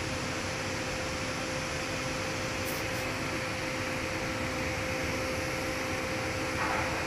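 Steady machinery hum with one constant mid-pitched tone, and two faint brief ticks about two and a half to three seconds in.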